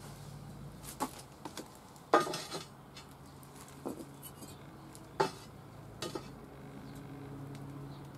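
Clay bricks being set down one by one on an 8 mm steel plate: about five hard clunks of brick on steel, the loudest about two seconds in with a short ring after it.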